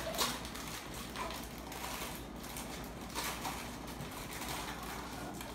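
Plastic bag of devil's food cake mix crinkling and rustling as it is worked open by hand, with a sharper click just after the start.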